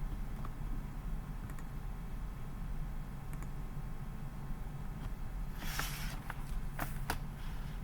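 Pencil on notebook paper: a short scratch of writing a little after halfway, then a few sharp taps and clicks, over a steady low electrical hum.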